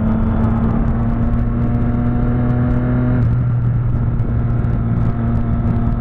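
Motorcycle engine holding steady revs at highway cruising speed, with wind rushing over the microphone. The engine note shifts slightly about three seconds in.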